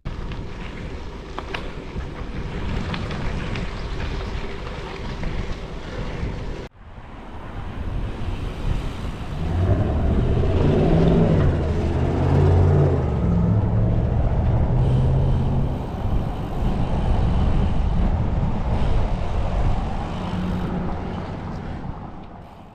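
Road traffic passing, with a large vehicle's engine loudest through the middle as its pitch steps up and down. The sound breaks off sharply about seven seconds in, then resumes.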